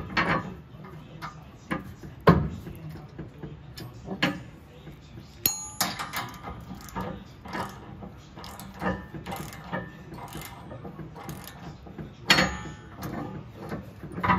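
Steel hardware and hand tools clinking and knocking against a steel tow hook and frame bracket as a bolt and washer are fitted and turned in with a socket wrench. The knocks are irregular and sharp, loudest at the start and about two seconds in, with a short metallic ring about five and a half seconds in.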